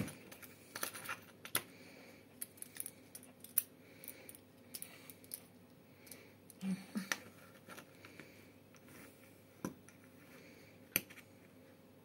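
Scattered light clicks and taps of a soldering iron and its small wire stand being handled on a tabletop, with a few sharper clicks near the middle and near the end.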